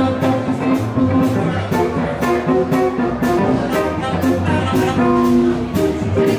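Live blues band playing: electric and acoustic guitars with a drum kit keeping a steady beat, under a held melody line.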